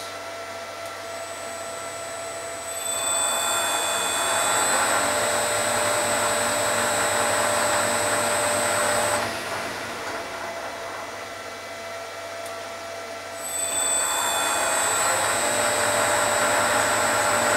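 Metal lathe driven by a newly fitted inverter-fed 2 hp AC motor running without load. It is brought up to a higher speed twice: each time the whirr of motor, belt and gearing grows louder, with a high steady whine over it, and between the two it settles back to a lower hum.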